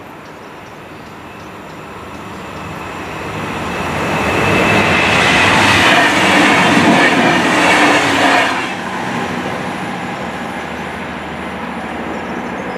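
Red DB diesel multiple unit passing at speed. The sound of wheels on rails and the engine builds over a few seconds and is loudest for about four seconds as the train goes by. It drops off sharply as the last car clears, leaving a lower fading rumble.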